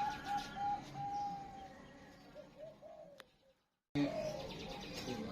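Zebra dove (perkutut) cooing: a run of quick, bouncing coo notes, a longer held note about a second in, then more notes that fade away. The sound cuts out briefly past the middle before the cooing starts again.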